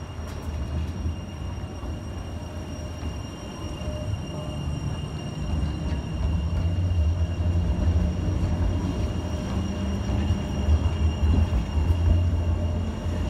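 Class 399 tram-train rolling slowly past on street track as it pulls into the stop. Its low rumble grows steadily louder as the cars come alongside.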